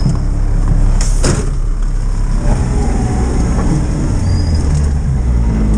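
Nissan Patrol Y60 off-road truck's engine running steadily, heard from inside the cab, with a door slamming shut about a second in.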